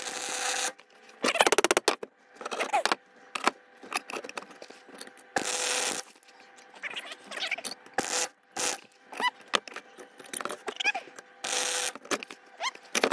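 MIG welder arc crackling on steel in a string of short stop-start bursts, each about half a second to a second long, as a touch-up weld is run around the joint of a steel auger.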